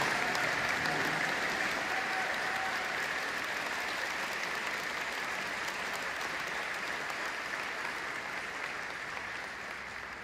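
Audience and choir applauding: steady clapping that tapers off near the end.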